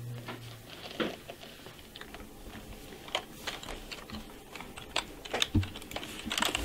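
Typing on a computer keyboard: irregular, scattered keystrokes that come quicker near the end, with one heavier knock about five and a half seconds in.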